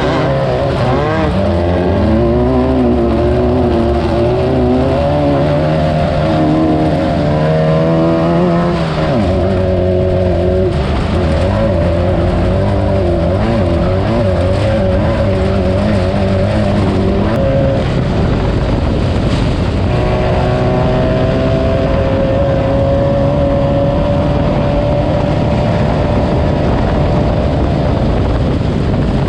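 Class 9 off-road race car's engine running hard over rough ground, its pitch rising and falling continuously with throttle and gear changes, under constant rattle and road noise. From about two-thirds of the way through, the engine holds a steadier, higher note.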